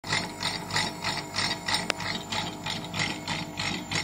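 Axial flux switched reluctance motor running on a unipolar controller: a steady hum under a rhythmic mechanical pulsing, about three and a half beats a second, with a single sharp click about two seconds in.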